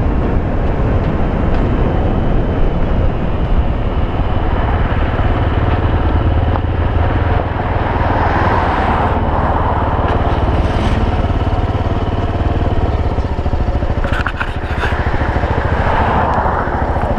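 Honda XR250 Baja's single-cylinder four-stroke engine running as the bike rides and slows onto a gravel roadside. A few sharp clicks about fourteen seconds in.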